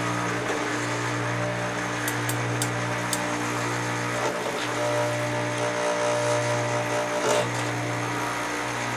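Electric chainsaw sharpener's motor humming steadily while its abrasive wheel grinds the saw chain's cutters. It gets a little louder for a couple of seconds past the middle.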